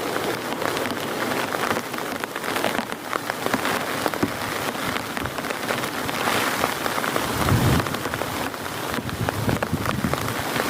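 Heavy rain falling, with many close, sharp drop impacts. A low rumble of thunder rolls in about seven seconds in and fades over the next few seconds.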